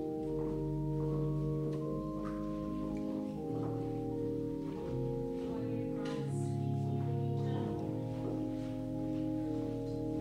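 Slow instrumental music of sustained, held chords that change every second or two.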